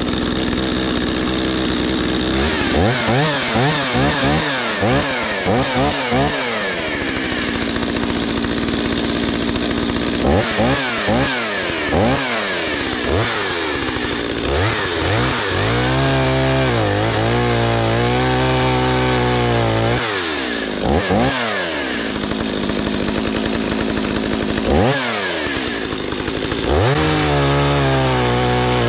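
Stihl 023 two-stroke chainsaw on a test run after a fuel-line replacement. It idles at first, is blipped up and down in quick revs, and from about the middle cuts into a log at full throttle, the pitch sagging under load and recovering. Its tune sounds rich.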